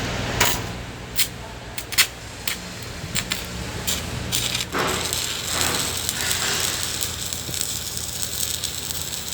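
Electric arc welding: sharp crackles and snaps for the first few seconds, then a steady frying sizzle from about five seconds in. A low hum fades out in the first three seconds.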